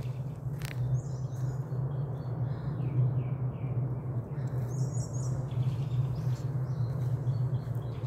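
Small birds chirping in short calls here and there over a steady low hum, with a single sharp click just before a second in.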